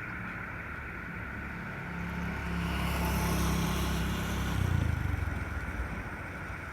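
A motor vehicle passes by: its engine and tyre noise grow louder, peak a few seconds in and fade away, over a steady high hum.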